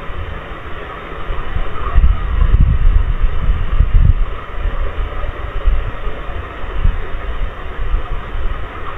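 Heavy rain on a CCTV camera's microphone: a steady rushing noise with deep, uneven rumbling, heaviest about two to four seconds in.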